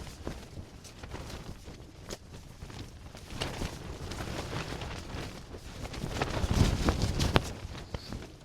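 Wind buffeting the microphone in gusts, loudest in a low rumble about two-thirds of the way through, with scattered clicks and rustles.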